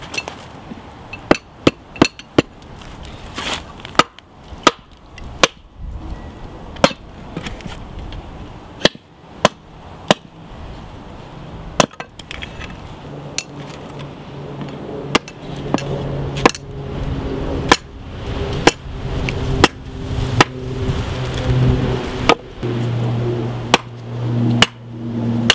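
Small hatchet chopping into a soft-wood knife-handle blank on a chopping block: a long series of sharp, irregular blows, some with a light clink. Background music fades in about halfway through and grows louder toward the end.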